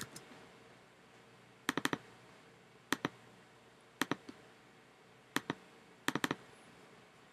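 Clicks at a computer as it is worked with mouse and keys: sharp clicks in quick pairs and two short runs of three or four, coming about once a second.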